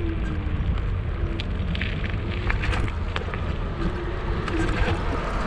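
Riding a scooter along a road: steady low wind buffeting on the microphone and tyre rumble on rough asphalt, with scattered sharp rattling clicks from about a second and a half in and a faint whine that comes and goes.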